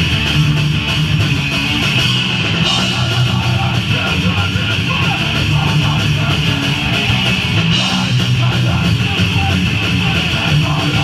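A live thrash/grind hardcore punk band playing loudly and without a break: distorted electric guitar, bass and drums.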